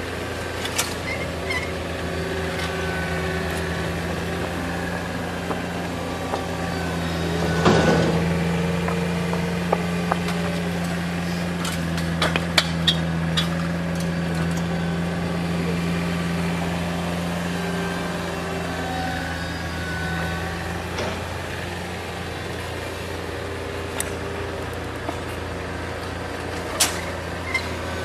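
Heavy diesel construction machinery running steadily, with scattered metallic clicks and knocks and a short louder rush of noise about eight seconds in.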